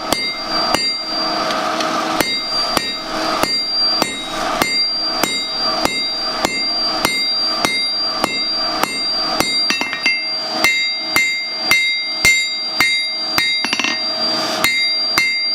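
Hand hammer striking hot steel on an anvil in a steady rhythm of about two to three blows a second, each blow ringing; a quicker run of lighter taps comes near the end. The bar is being drawn out into a tapered stem, half on and half off the anvil.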